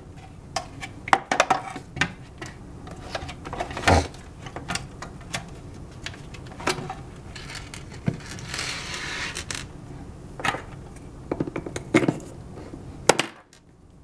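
Hard plastic hoverboard shell parts and wiring being handled against the aluminium frame during reassembly: a string of irregular clicks, knocks and clatters, with a longer rustling scrape about two-thirds of the way through. The sound drops away sharply just before the end.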